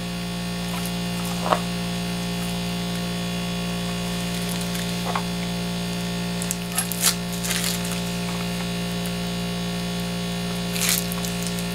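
Steady electrical mains hum. A few brief, faint rustles and clicks come from the plastic-wrapped new chainsaw being turned over in the hands.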